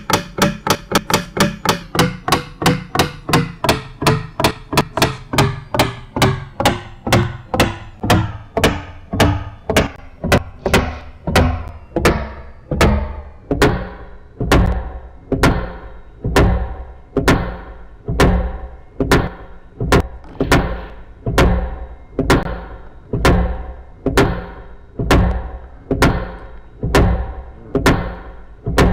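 A steady series of sharp knocks, each with a short ringing tail, slowing gradually from about four a second to about one and a half a second, with a faint tone sliding downward beneath them through the first half.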